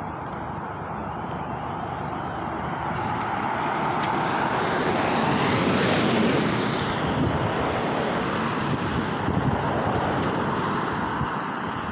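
A city bus drives past close by. Its engine and tyre noise build up, are loudest about halfway through as it passes, then fade as it moves off.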